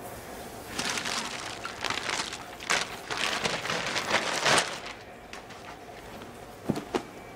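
Close rustling and rubbing, like hands working through hair and fabric being handled, from about a second in until nearly five seconds. Two short sharp clicks come near the end.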